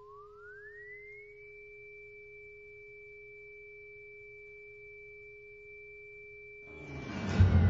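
Synthesized intro tones: a steady low pure tone under a higher one that glides up over about a second and then holds. Near the end a loud noisy swell with a deep rumble builds in, and the high tone starts to slide back down.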